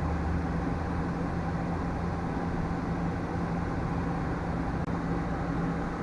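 Steady low machine hum with a constant drone, like a running shop fan or air-conditioning unit, and no distinct tool clicks or scrapes.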